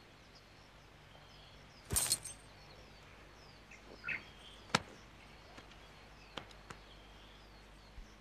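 Quiet outdoor ambience with small birds chirping faintly. A short whooshing burst comes about two seconds in, and a few sharp light clicks follow later.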